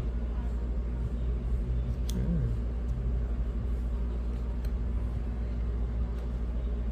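Steady low background rumble, with a faint click about two seconds in.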